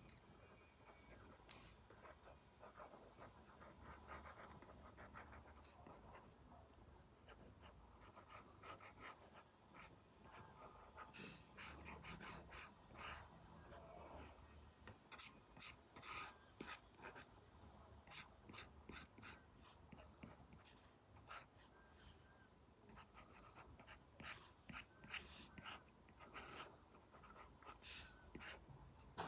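Apple Pencil Pro stylus tip scratching, stroking and tapping on an iPad screen covered with a paper-like matte film, faint, in many short strokes that come more often in the second half.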